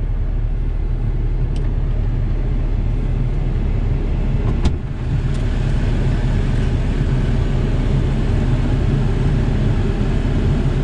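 2015 Ram 1500 EcoDiesel's 3.0-litre V6 turbodiesel idling steadily at normal idle speed, the forced DPF regeneration not yet running. A single sharp click cuts in about halfway through.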